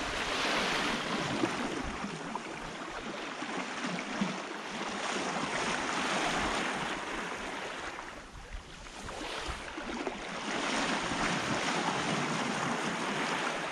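Rushing hiss of water and wind as a sailing yacht moves through the sea, swelling and easing every few seconds with no engine running.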